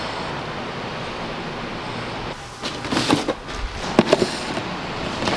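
Steady hiss for the first couple of seconds, then a cardboard shoebox being picked up and handled: a few knocks and rustles of the box.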